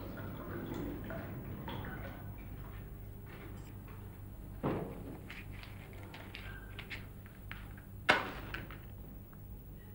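Small clicks of a matchbox being handled, then a match struck on the box about eight seconds in, a sharp scrape that flares and fades. A dull thump comes a little before halfway.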